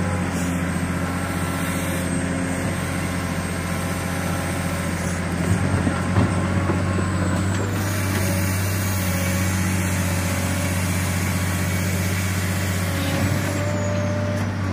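Caterpillar 365C tracked hydraulic excavator's six-cylinder C15 diesel engine running steadily as the machine works its boom and bucket, a deep continuous drone. A few light knocks come about six seconds in.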